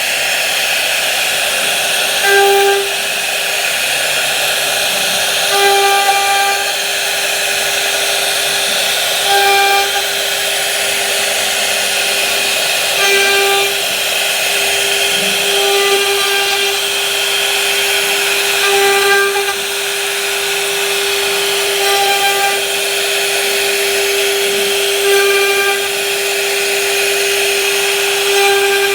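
A power tool's motor running with a steady hum and a hiss, swelling briefly every three to four seconds.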